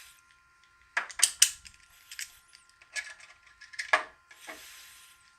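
Sharp metal clicks and rattles, about seven spread over a few seconds, from a Master Lock No. 1 padlock and lock-picking tools being handled between rakings. A short scraping sound comes near the end.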